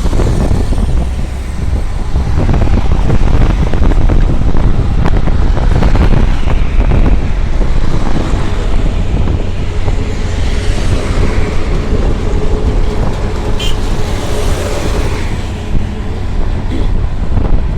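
Road traffic noise from travelling through town traffic: a steady, loud mix of vehicle engines and tyre noise with a heavy low rumble.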